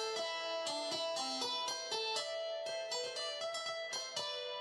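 Instrumental background music: a keyboard playing a continuous run of bright, crisply attacked notes, one after another.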